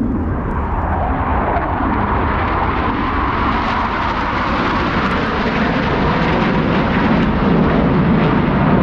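Blue Angels F/A-18 Super Hornet jets in formation, giving a loud, steady jet roar. A tone falls in pitch over the first couple of seconds as they pass by.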